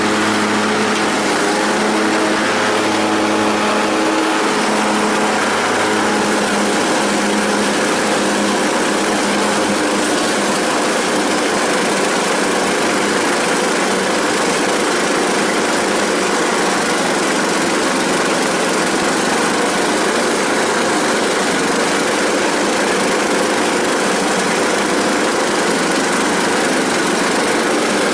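Troy-Bilt Pony riding lawn mower's 500 cc Briggs & Stratton engine running steadily; a low pitched hum fades about ten seconds in, leaving an even engine drone.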